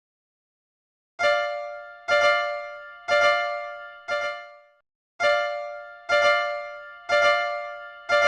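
Level crossing warning bell sound effect, a pitched ding struck about once a second with each ring fading away. It starts about a second in, breaks off briefly near the middle, then resumes at the same pace.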